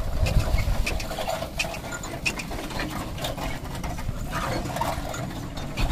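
Bullock cart rattling and clattering as it rolls over rough, muddy ground, with a stream of irregular clicks and knocks over a low rumble.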